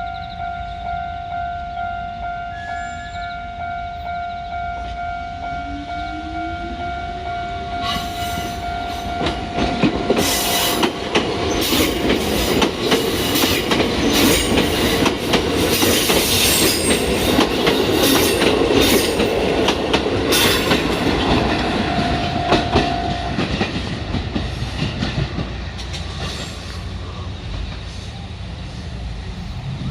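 Level-crossing warning bell ringing while a Kotoden electric train approaches, with a rising motor whine. About eight seconds in, the train runs over the crossing and its wheels clatter over the rail joints for roughly twelve seconds. The bell is heard again briefly after the train has passed, then stops.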